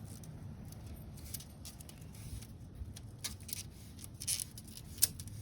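Faint scattered clicks and rustles of a rubber screen spline being pressed by hand into the groove of a window screen frame over new mesh, with one sharper click near the end.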